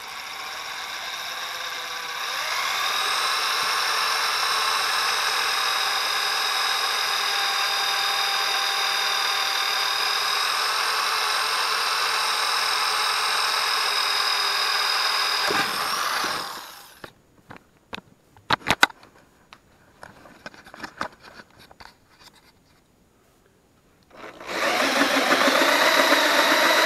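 Electric drill boring a hole through an aluminum plate: a steady motor whine that comes up to speed about two seconds in and stops after about sixteen seconds. A few sharp clicks and clatters follow, and another steady machine sound starts near the end.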